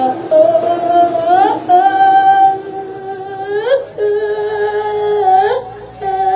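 A single voice singing long drawn-out held notes without clear words, in the melodic style of a Thai sung sermon, each note ending in a quick upward slide, three times in a row.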